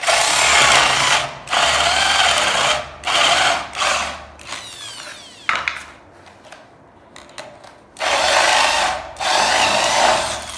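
Corded hand drill boring concealed-hinge cup holes through a white-laminated cabinet door panel with a wide flat-bottomed bit. It runs in several loud spells of one to three seconds with pauses between them, and the motor's whine falls as it winds down in one pause about halfway through.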